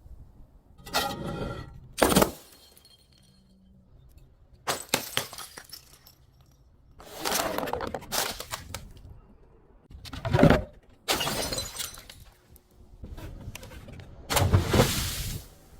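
Glass being smashed and crushed, about seven times: some short sharp cracks and some longer crunching, shattering bursts, with short pauses between them.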